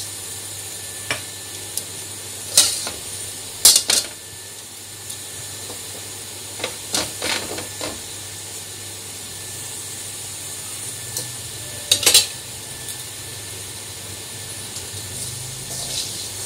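Cumin seeds sizzling in hot mustard oil in a kadhai, a steady hiss, with sharp knocks and clinks of utensils against the pan, loudest about four seconds in and again about twelve seconds in.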